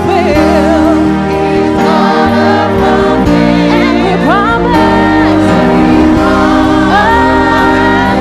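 Gospel worship music: voices singing held, wavering notes that slide up into each phrase over sustained chords.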